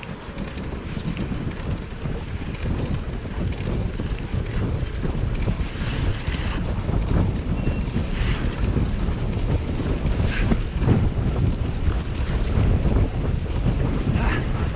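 Wind buffeting the microphone of a camera carried on a moving bicycle, a gusty low rumble that grows gradually louder.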